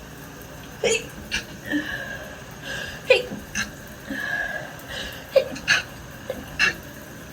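A woman sneezing over and over in an allergic sneezing fit set off by body wash: about eight short, sharp sneezes, mostly in quick pairs, with drawn-out high whimpering breaths between them.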